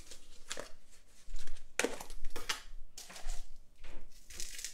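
Rustling and light knocks of kitchen containers and a measuring spoon being handled while salt is measured out, in several short bursts.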